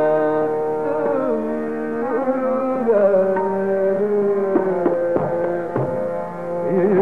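Male Hindustani classical vocalist singing raga Chhayanat, holding long notes that step down in pitch and then breaking into quick ornamental turns near the end. Beneath the voice is a steady tanpura drone, with a few tabla strokes in the second half.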